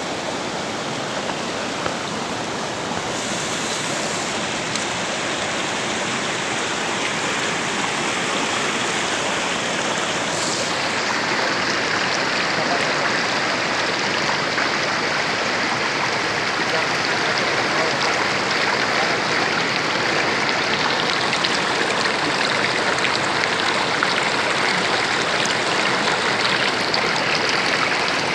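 Shallow mountain stream rushing over rocks and through a gold sluice box's riffles: a steady rush of water that grows a little louder about ten seconds in.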